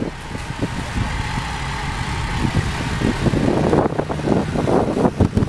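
Engine of a heavy articulated six-wheeled swamp vehicle running steadily as it crawls through bog mud. An uneven rushing noise grows louder from about three and a half seconds in.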